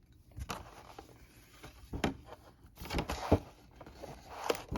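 A trading-card box and its packaging being handled: scattered light clicks, taps and short rustles.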